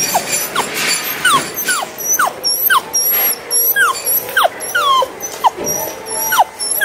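Small dog whining: a string of short, high cries, each falling in pitch, about two a second. This is the anxious whimpering of a timid dog.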